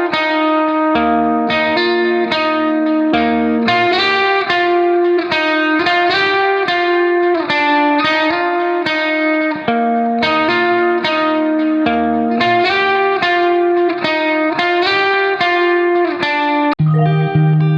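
Background music: a plucked guitar melody with a bass line, notes changing quickly and evenly.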